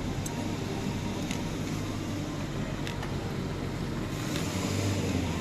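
A car driving, heard from inside: a steady low running and road noise with a few faint, irregular ticks.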